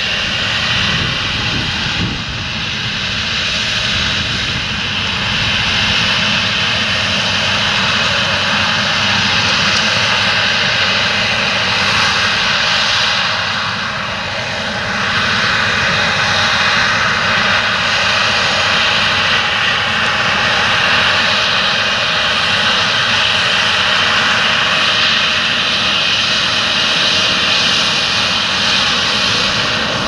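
Challenger MT775E rubber-tracked tractor's diesel engine working hard under load, pulling a ten-furrow reversible plough through stubble. It runs steadily, with a thin high whine held over the engine sound.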